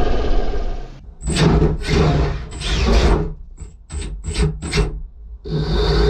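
Loud rock intro music cuts off about a second in. A 3lb combat robot then makes a string of short, sharp scuffing bursts as it is driven in quick jerks across a plywood floor, and near the end its motor starts a steady, continuous whir.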